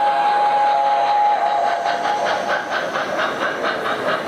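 Model steam locomotive's sound system blowing a steam whistle, one held note that stops about a second and a half in. Rapid, even clicking of the train's wheels follows, about five a second, as the hopper cars roll past over a steady rolling rumble.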